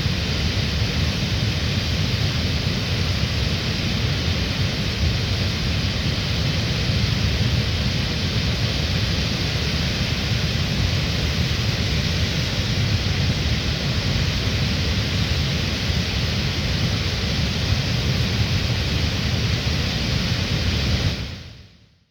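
Goðafoss waterfall: a steady rushing roar of falling water with a deep rumble, fading out near the end.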